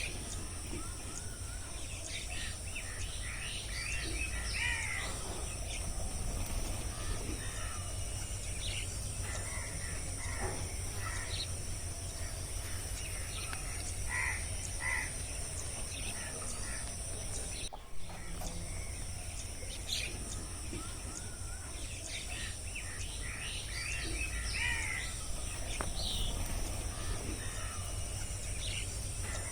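Rainforest birds calling with scattered short chirps and trills over a steady, high insect drone and a low background rumble. The sound dips briefly about two-thirds of the way through.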